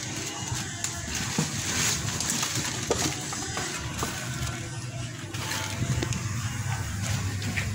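Plastic bags and rubbish crinkling and crackling as goats root and feed through a garbage heap. A vehicle engine runs underneath, growing louder in the last couple of seconds.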